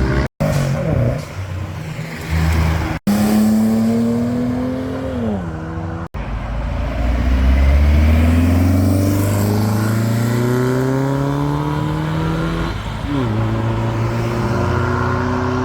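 Car engine accelerating hard, its pitch climbing steadily and dropping sharply at gear changes, then climbing again. The sound is broken by a few abrupt edit cuts between shots.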